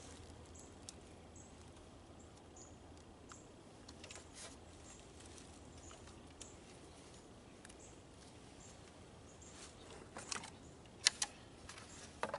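Quiet background with a few faint high chirps, then a handful of sharp clicks and small knocks about ten to eleven seconds in.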